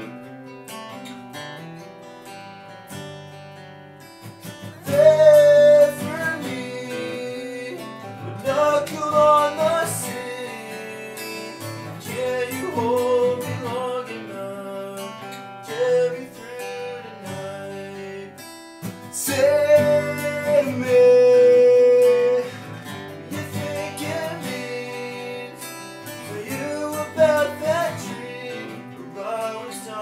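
Two acoustic guitars strummed together, with a voice singing a melody over them in several phrases, played live in a small bathroom.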